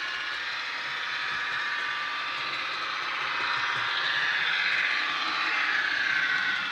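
DCC sound decoder playing a Class 150 Sprinter DMU's diesel engine running under way, through two small sugarcube speakers in an OO-gauge model. The sound grows louder from about halfway through.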